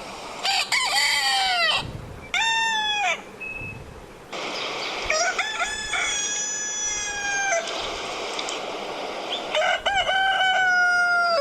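Rooster crowing four times: long drawn-out cock-a-doodle-doo calls, the third and fourth held longest.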